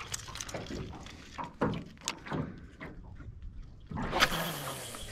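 Scattered light splashes and knocks of water and tackle, then about four seconds in a sudden hissing rush as a stick bait is cast out on a heavy fishing rod.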